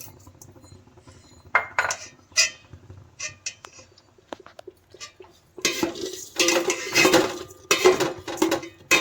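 A spatula scraping and clinking against a cooking pot as lentils and rice are stirred and fried: a few separate clinks at first, then steady brisk stirring from about halfway on.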